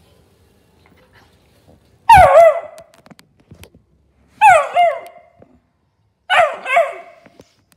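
Beagle puppy barking in three loud bursts about two seconds apart, each bark starting high and dropping in pitch, the second and third doubled. These are warning barks at an unfamiliar object.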